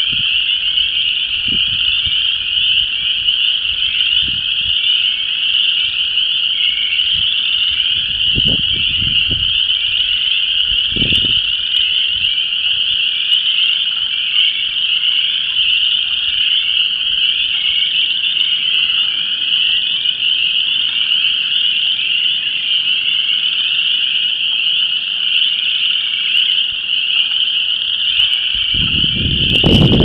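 Continuous chorus of frogs (spring peepers, chorus frogs and wood frogs) calling together. Wind buffets the microphone in a few brief gusts and more strongly near the end.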